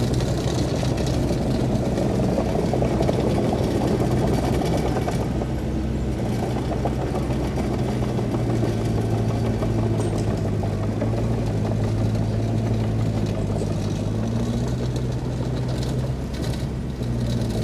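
Diesel engine of heavy earthmoving machinery running steadily, its pitch drifting slightly up and down with load, dipping briefly near the end.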